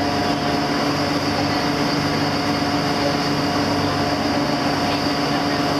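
Steady engine drone heard from inside a passenger vehicle's cabin, a constant hum that does not change in pitch or level.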